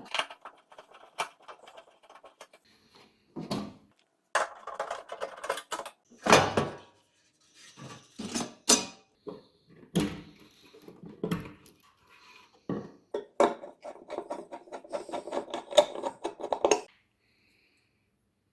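Hard objects being handled: metal parts and tools clinking, clicking and rattling in irregular bursts, with a quick run of clicks near the end.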